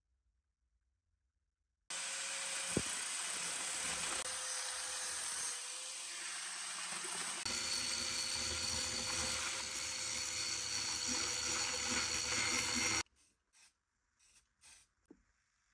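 Angle grinder with a grinding disc grinding the rust off a steel hammer head clamped in a vise: a loud, steady grinding noise that starts about two seconds in and cuts off abruptly about eleven seconds later. A few faint short knocks follow.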